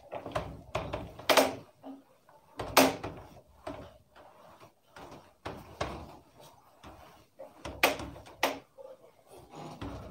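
Whiteboard being wiped clean by hand: a string of irregular rubbing strokes and soft knocks against the board, the strongest a little over a second in, near three seconds and near eight seconds.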